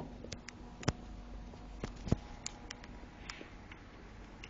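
Handling noise: a scatter of sharp clicks and light knocks, the loudest about one and two seconds in, with a brief soft rustle near the end, as a graphics card and its packaging are handled.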